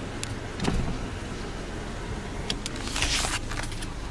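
Steady low rumble of a car heard from inside the cabin, with a few light clicks and a short hiss about three seconds in.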